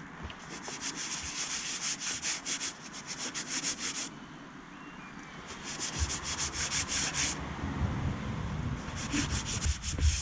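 Sandpaper rubbed quickly back and forth on a piece of rough old timber, in three bouts of rapid strokes with short pauses between.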